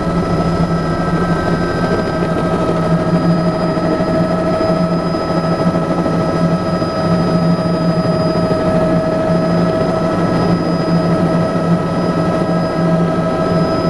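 Bell 206B III JetRanger helicopter heard from inside the cabin, its turbine whine and rotor noise running steadily while it comes down to land on the helipad.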